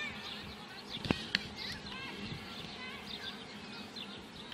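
Football match on a grass pitch: faint distant shouts from the women players, and two sharp knocks a little over a second in, the ball being kicked.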